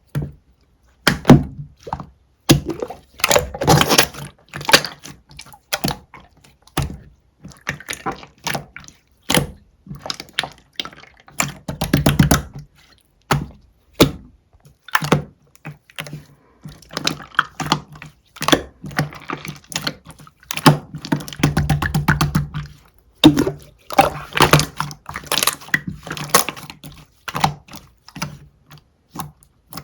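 Clear slime being squished, pressed and poked by hand, making runs of sticky clicks and pops in bursts with short pauses between them.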